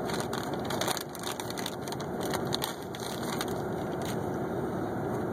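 Irregular dry crunching and crackling, a quick run of sharp clicks that stops about four seconds in, over a steady low background hum.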